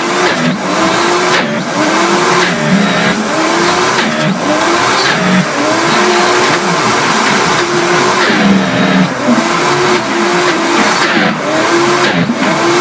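High-performance blenders running at full speed on frozen banana chunks, a heavy load for the motor. The motor pitch dips and recovers about once a second as the jar is tamped.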